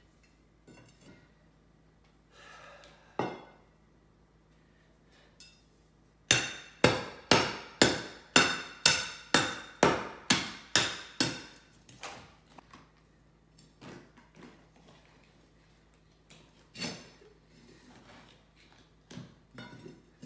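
A run of about a dozen sharp, ringing metal-on-concrete strikes, about two a second, starting about six seconds in, as a steel pry bar is driven into a saw cut in a tiled concrete floor to break out a block. Fainter scattered knocks and scrapes come before and after.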